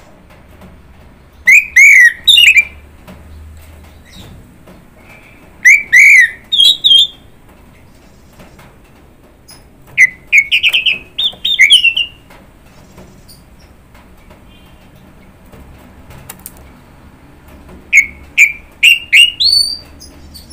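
Orange-headed thrush (anis merah) singing: four loud bursts of quick, varied whistled notes a few seconds apart, with the later phrases longer.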